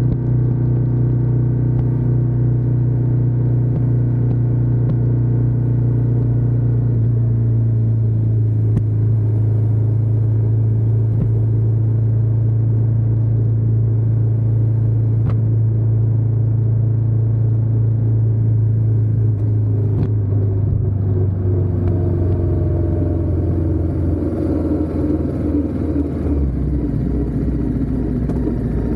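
Ducati Diavel 1260S's V-twin engine and exhaust running steadily while riding, a deep even note. From about two-thirds of the way in the engine note changes and drops.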